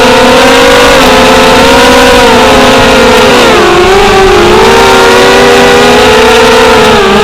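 FPV racing quadcopter's brushless motors and propellers giving a loud, steady whine. The pitch falls and rises as the throttle changes, with a clear dip a little past the middle.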